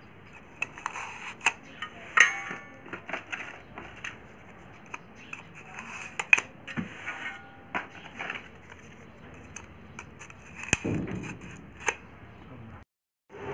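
Small irregular clicks and taps of hands fitting paper shims and the voice coil into the magnet gap of a 15-inch speaker, so that the coil sits centred. The sound cuts out briefly near the end.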